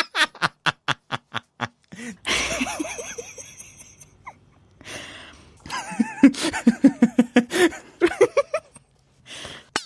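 Laughter sound effects played one after another: a quick run of short giggles, about six a second, then a breathy burst of laughter, then a rhythmic ha-ha laugh of about five beats a second.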